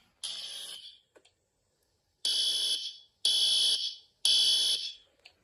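Building fire alarm horn sounding the evacuation signal in a temporal-three pattern: loud, high-pitched blasts about a second apart in groups of three, with a longer pause between groups. The alarm has been set off by a pulled pull station.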